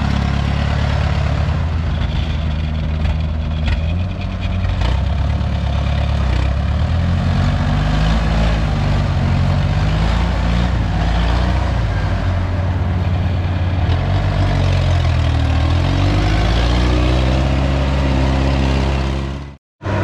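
Engine of a small tracked crawler carrier running as it drives over a field bank and harvested rice field, its pitch rising and falling with the load. The sound cuts off suddenly near the end.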